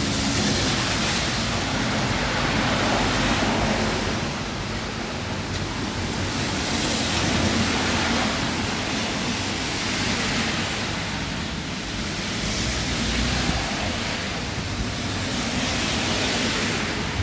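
Torrential typhoon rain pouring down, with gusts of wind swelling and easing every few seconds.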